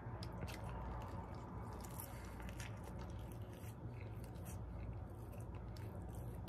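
Close-up chewing of a bacon cheeseburger: a bite, then soft, wet mouth clicks and smacks as it is chewed, over a steady low hum.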